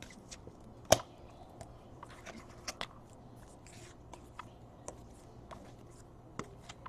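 Baseball cards being handled and flipped through by hand: faint scattered ticks and rustles of card stock sliding together, with one sharper snap about a second in.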